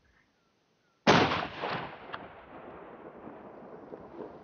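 A single hunting-rifle shot about a second in: a sudden sharp crack that rolls away over the next second, then a faint steady hiss.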